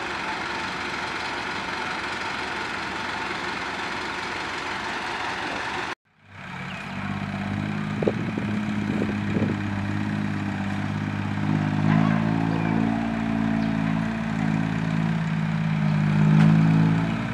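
Six-wheel diesel dump truck engine running; the sound cuts out briefly about six seconds in, then a dump truck's diesel engine hums steadily and revs up louder near the end, with a few short knocks.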